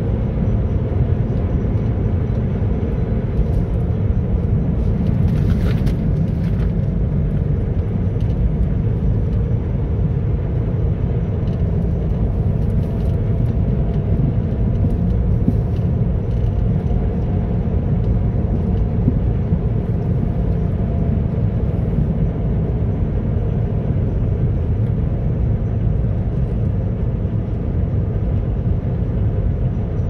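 Steady low rumble of a car's tyres, road and engine heard from inside the cabin while driving.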